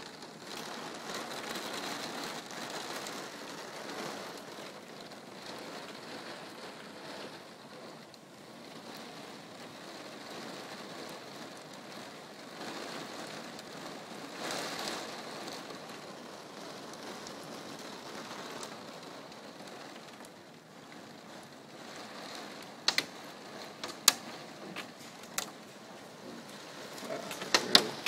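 Rain falling steadily, an even hiss. Several sharp clicks come near the end, the loudest about 23 and 24 seconds in.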